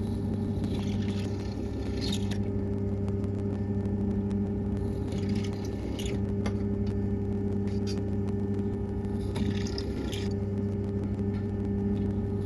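Benchtop drill press motor running with a steady hum. The bit cuts into an aluminium channel three times, each cut a burst of hissing, scraping noise lasting one to two seconds, as the mounting holes are drilled.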